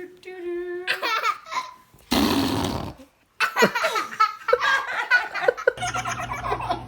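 A baby's short, buzzy fart about two seconds in. After a brief break comes laughter.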